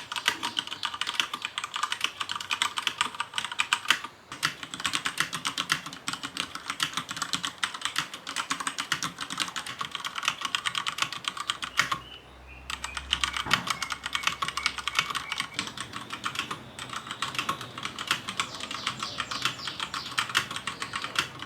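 Typing on a Cherry MX 3.0S mechanical keyboard fitted with Cherry MX Silent Red linear switches: a fast, continuous run of keystrokes, not very loud, breaking off briefly about four seconds in and again near the middle.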